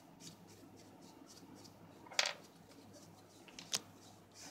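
Faint handling sounds of painting a foam squishy with a plastic-gloved hand: light scratching and small ticks, a short rustle about two seconds in, and a sharp click about a second later.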